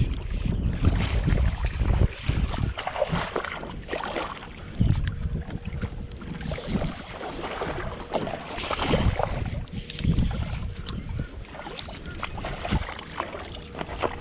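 Irregular splashing and sloshing of shallow river water while a hooked smallmouth bass is played on a fly rod, over a low rumble on the microphone.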